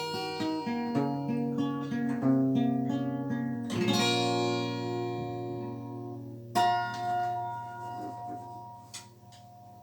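Acoustic guitar playing the closing bars: picked notes, then a strummed chord about four seconds in and a final chord a little later that rings out and fades away.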